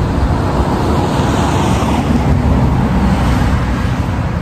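Road traffic noise: a low, steady rumble with a vehicle passing, swelling and fading about two seconds in.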